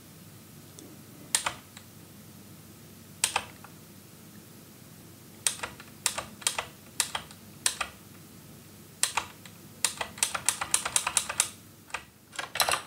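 Computer keyboard typing: a few single keystrokes at first, then short runs of keys, and a quick burst of rapid typing about ten seconds in.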